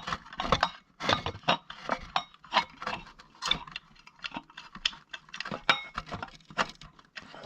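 Irregular light clicks and clinks of the bell's small metal and plastic parts being handled as the module is fitted back on, about three or four a second. There is no ringing from the bell itself.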